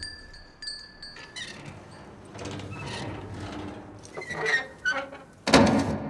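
A small hanging bell ringing with steady chime tones that stop about a second and a half in. Softer metallic movement sounds with short squeaks follow, then a loud clunk near the end.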